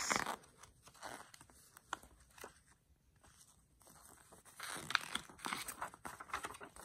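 Paper pages of an assembly instruction booklet turned by hand, rustling. A short rustle comes at the start, the middle is nearly still, and a longer run of rustling comes in the second half.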